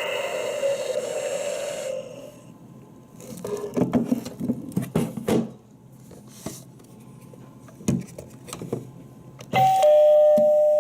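Gemmy animated eye novelty doorbell: its electronic sung tune ends about two seconds in, followed by several seconds of scattered clicks and knocks. Near the end comes a two-note ding-dong chime, high then lower.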